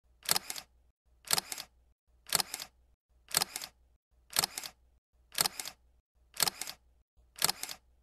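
Camera shutter sound effect repeating evenly about once a second, eight times, each a quick double click, marking each photo in a slideshow.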